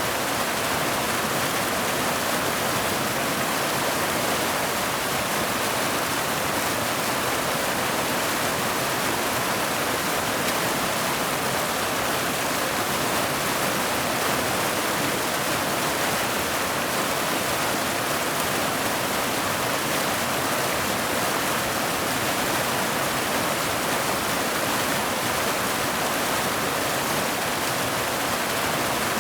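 Mountain waterfall pouring over boulders into a pool: a steady, even rush of water.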